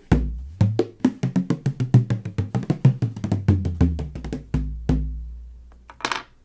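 16-inch tunable bodhrán with a medium goatskin head being struck in a fast, driving rhythm, each beat giving a deep boom. The playing ends with two deep strikes left to ring out and fade just before 5 seconds in.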